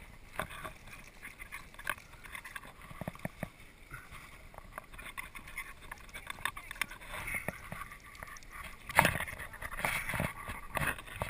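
River water rushing and lapping close to the microphone, with scattered small clicks and knocks of handling and a louder rush of noise about nine seconds in.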